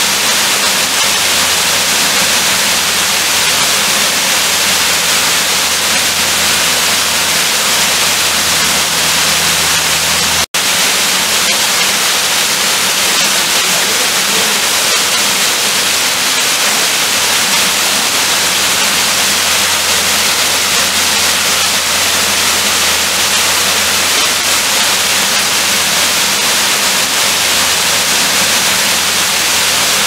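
Waterfall cascading down rock into a pool: a steady rush of falling water, cutting out for an instant about ten seconds in.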